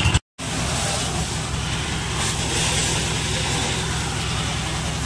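A pressure washer's water jet hissing against a truck's steel body, over the steady hum of the washer's pump motor, after a momentary break just after the start.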